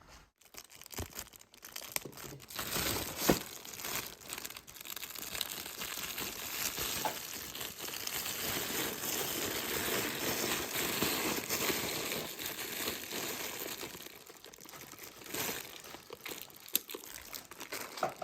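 Plastic packaging crinkling and rustling as it is handled, with a few sharp clicks and snaps; the rustling is busiest in the middle.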